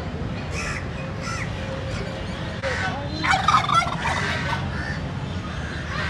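Poultry calling at a market bird stall: several short calls, the loudest a wavering burst about three seconds in, over a steady low background rumble.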